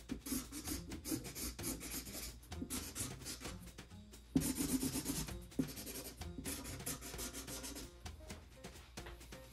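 Sharpie marker scratching and rubbing across a cardboard comic box in quick short strokes, loudest for about a second near the middle.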